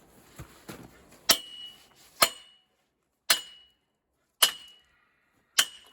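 Hammer striking steel log-holder brackets tack-welded onto a log trailer: five sharp blows about a second apart, each with a brief metallic ring, after a couple of faint knocks.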